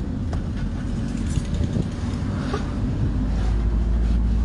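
Car driving, its engine and road noise heard from inside the cabin, with a few light knocks; the low rumble grows louder about three seconds in.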